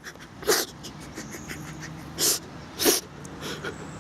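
A man breathing and sniffing in short, sharp bursts close to the microphone, with three loud ones: about half a second in, then just past two seconds and near three seconds.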